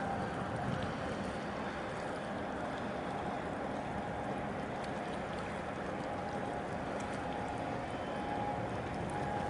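Steady wash of choppy harbour water with a passing cargo ship's machinery humming at a constant pitch.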